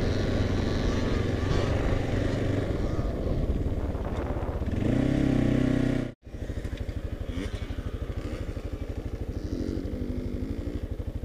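Kawasaki KLR650's single-cylinder four-stroke engine riding under load on a dirt trail, rising in pitch about five seconds in. After a short break it settles into an even, rapid thumping idle.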